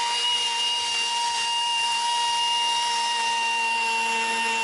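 A handheld power grinder runs with a steady high-pitched whine, grinding metal away to make clearance for the timing belt on a Daihatsu three-cylinder engine part.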